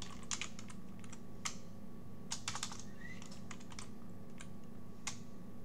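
Computer keyboard being typed on: short irregular runs of key clicks with brief pauses between them, over a low steady hum.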